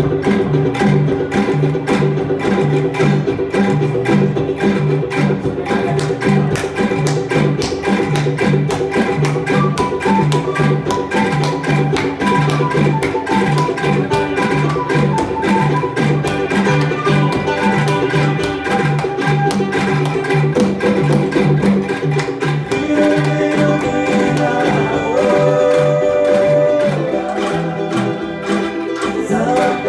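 An angklung ensemble plays a tune. The tuned bamboo tubes are shaken in a rapid rattling tremolo over a repeating low bass figure, and a few new held notes come in during the last several seconds.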